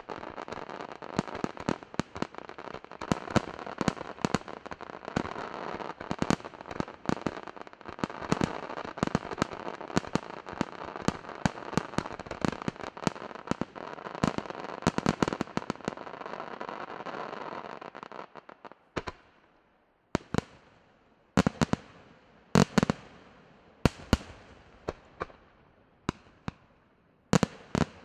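Aerial fireworks display: a dense run of shell bursts over continuous crackling for about the first eighteen seconds, then thinning out to single loud bangs roughly a second apart, each trailing off in echo.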